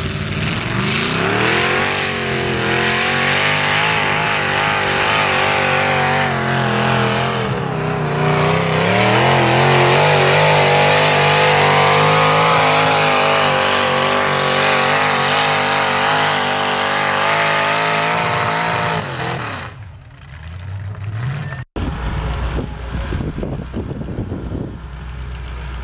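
Modified mini pulling tractor's engine running at high revs under load as it drags a weight-transfer sled, its pitch wavering and dipping with the load, then dropping away and dying about 19 seconds in. Near the end a garden tractor's engine idles low and steady.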